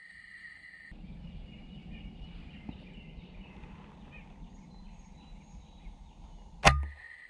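A single shot from an FX Impact .30 PCP air rifle about six and a half seconds in: a sharp crack with a low thump, then a faint steady high ring. Before the shot there is only faint outdoor background noise.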